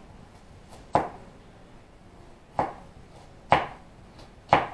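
Kitchen knife chopping vegetables on a cutting board: four single sharp strikes at a slow, uneven pace, about one a second.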